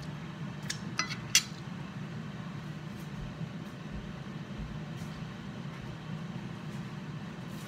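A few short clinks of kitchenware about a second in, the last the loudest, over a steady low hum.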